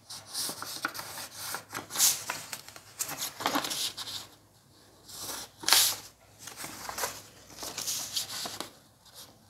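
A sheet of offset paper being folded and creased along a plastic ruler: rustling and rubbing of paper in several short bursts, the loudest nearly six seconds in.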